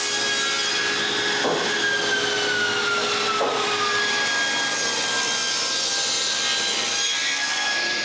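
Table saw ripping a glued-up walnut blank, the blade cutting steadily through the hardwood. Its tone falls slowly in pitch for a couple of seconds as the cut loads it.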